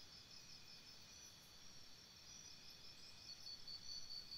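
Near silence: faint background hiss with a faint, high-pitched pulsing chirp that repeats several times a second and grows a little stronger near the end.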